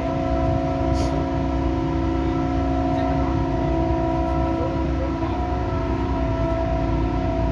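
Steady drone of a ship's machinery on the foredeck of a tanker: a low rumble with several steady humming tones over it that does not change.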